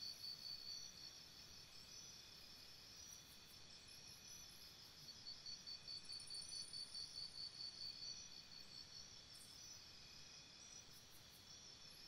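Faint jungle ambience of insects chirping in a steady high pulsing rhythm, about three pulses a second. The pulsing fades down a second or so in, comes back around the middle, and fades again.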